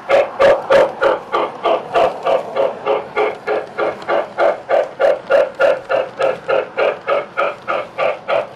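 O gauge model train running along its track with a rapid, steady rhythmic beat of about five pulses a second.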